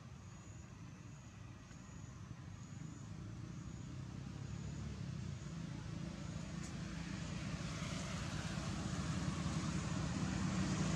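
Motor vehicle rumble growing steadily louder as it approaches, with faint high chirps repeating about twice a second in the first half.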